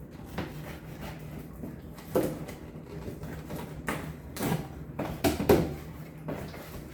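A cardboard box being handled and opened by hand: a handful of sharp knocks and rustles, the loudest about five and a half seconds in.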